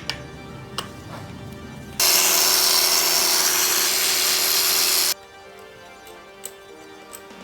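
A power tool runs steadily for about three seconds, starting and stopping abruptly, with a few light clicks of tools before it, over low background music.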